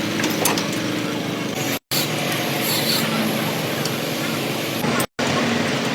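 Truck engine running steadily, broken by two brief dead gaps from edit cuts, about two seconds in and again about five seconds in.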